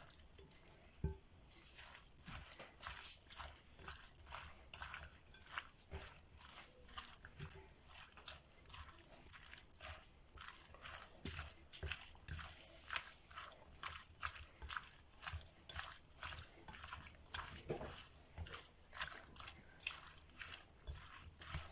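Mixing a sticky blend of lemon, orange, grated ginger, turmeric and honey: faint, repeated wet squelching and clicking strokes, about two a second.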